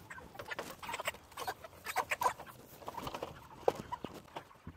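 Chickens clucking in short irregular calls, with scuffling and light knocks as the birds are caught and moved into a new pen.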